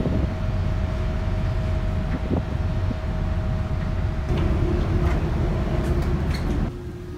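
Outdoor wind noise on the microphone over a steady low rumble with a faint hum from the ferry's deck vents and machinery. About six and a half seconds in, the sound cuts off abruptly to much quieter indoor room tone as a door is passed.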